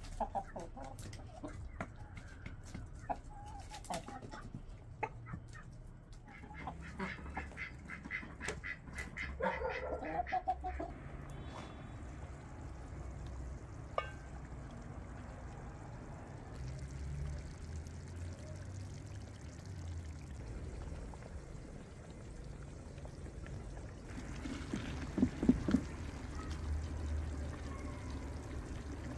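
Chickens clucking through the first ten seconds or so. About halfway through comes a single clink as a pot lid is lifted, and near the end soup is ladled out of a steaming pot with a few knocks of the metal ladle.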